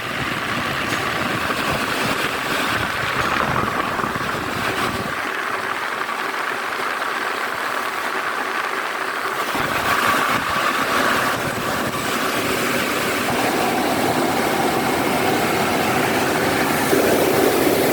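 Bus air-conditioning unit running: steady machine noise, its fans and compressor giving a constant whoosh and hum, with the deep rumble dropping away for a few seconds in the middle.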